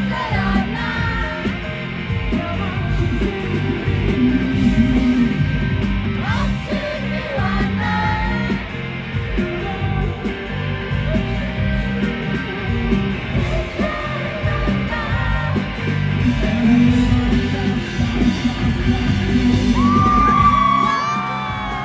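Rock band playing live, with a sung lead vocal over the band. Near the end comes a loud, high held vocal note that bends in pitch.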